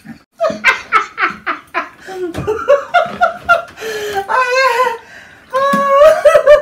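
A woman and a man laughing hard: quick rapid-fire bursts of laughter starting about half a second in, then a long drawn-out laughing cry near the end.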